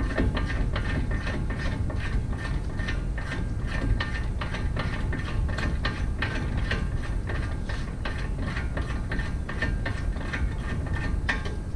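Ratchet wrench clicking steadily and fast, about four or five clicks a second, as a bolt is turned out, over a constant low hum.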